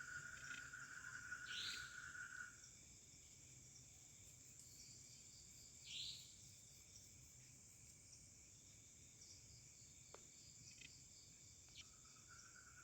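Faint chorus of crickets and other forest insects trilling steadily at several high pitches. A lower trill stops about two and a half seconds in and comes back near the end, and two short higher calls stand out, about one and a half and six seconds in.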